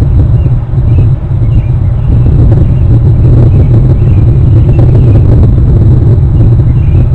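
Loud, steady low rumble of wind buffeting an outdoor camera microphone, with faint short high chirps every second or so.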